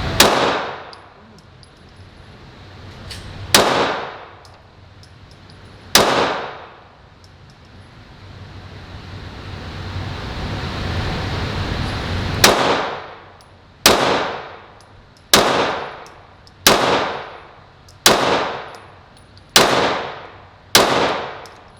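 Ten pistol shots fired one at a time on an indoor range, each with a short echoing tail: three spaced several seconds apart, then seven in a steadier string about one and a half seconds apart.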